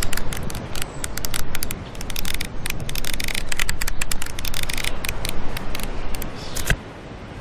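Paper pages of a hand-drawn flipbook riffling off a thumb: a rapid run of dry paper flicks with a few short pauses, cutting off suddenly with a last sharper snap near the end.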